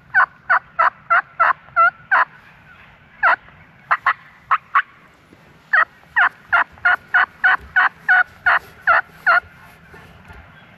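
Turkey yelping: a run of evenly spaced yelps, about three a second, then a few short, sharper notes, then a second, longer run of yelps that stops a little over a second before the end.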